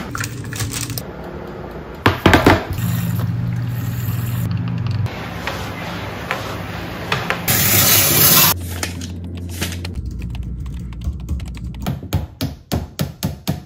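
A run of short household sounds: a steady hum and a loud hiss of steam from a handheld steam cleaner, then a claw hammer striking a nail, about two to three blows a second, near the end.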